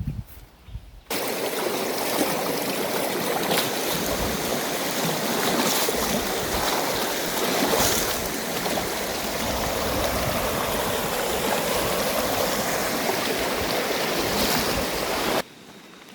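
Water of a stream or small river running steadily. It starts abruptly about a second in and cuts off abruptly near the end.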